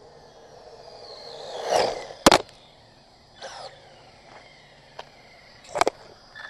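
A 1/18-scale HPI Mini Recon electric RC truck drives up to the camera on a gravel road, its motor whine swelling and falling in pitch as it closes in. About two seconds in it hits the camera with a sharp double knock, the loudest sound here. A smaller whine passes near the middle, and another sharp knock comes near the end.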